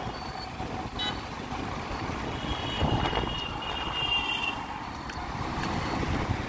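Road and traffic noise heard from the back of a moving motorcycle: steady engine and wind rumble, with a vehicle horn sounding for about two seconds near the middle.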